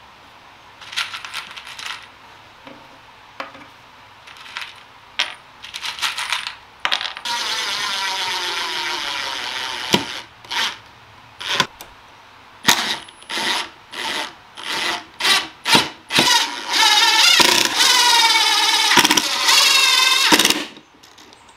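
Cordless drill driving pocket-hole screws into plywood: a few short trigger pulls, then a long run whose pitch sinks steadily, a quick string of short bursts, and another long run near the end.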